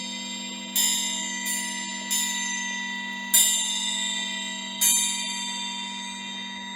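Crystal singing bowls sounding steady, sustained tones, with a bright metallic chime struck five times over them, each strike ringing out and fading.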